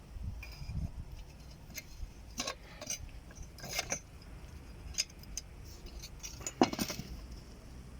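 Scattered light clinks and clicks, about half a dozen separate strikes, the sharpest about two-thirds of the way in.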